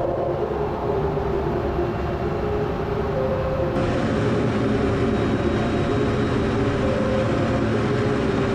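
Steady jet cockpit noise of an F-16 Fighting Falcon in flight, heard from inside the canopy: engine drone and rushing air with a few steady hum tones. The hiss changes slightly about four seconds in.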